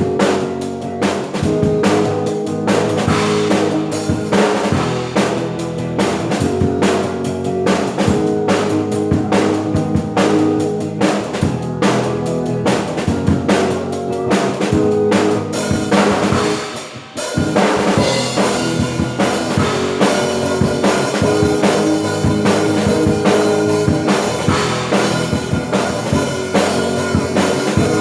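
A drum kit played with kick drum, snare and rimshots over full worship-band music with sustained pitched parts. There is a brief break about seventeen seconds in before the band and drums come back in.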